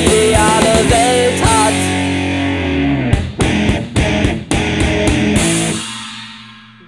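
Rock band playing the last bars of a song with electric guitar and drums. There is a run of sharp drum hits about halfway through, then the final chord fades out.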